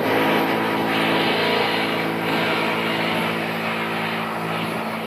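An engine running steadily at one speed.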